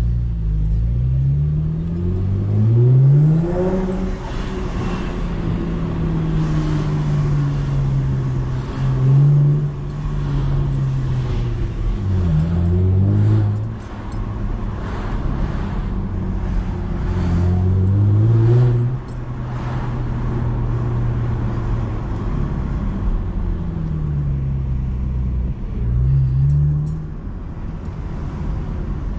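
Chevrolet Camaro's engine heard from inside the cabin while driving. The revs climb twice in quick succession as it pulls up through the gears near the start, then settle into a steady cruise. The revs dip and rise again several times with later accelerations.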